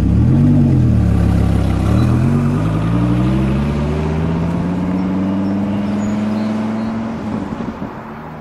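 Dodge Viper V10 blipped once, then accelerating away, its engine note climbing steadily and starting to fade near the end.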